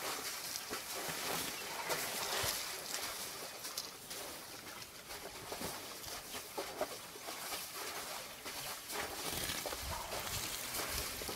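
Wet splashing and sloshing in shallow muddy water as a baby elephant rolls about in it, with irregular small splashes over a steady outdoor hiss.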